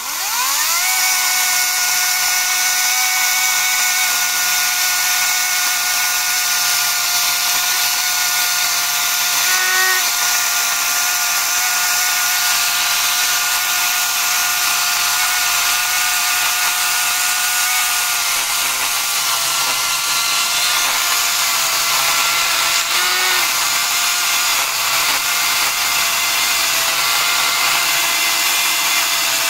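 Einhell GE-LC 36/35 Li twin-18 V cordless electric chainsaw spinning up with a rising whine, then running steadily as it cuts through a thick log, its pitch wavering briefly about ten seconds in and again past the twenty-second mark.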